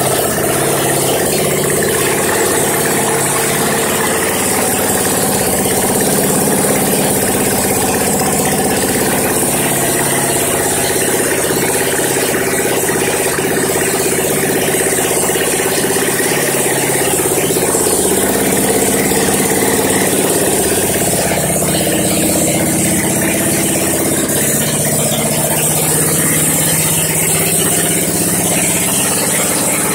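Yerf Dog go-kart's small gasoline engine idling steadily.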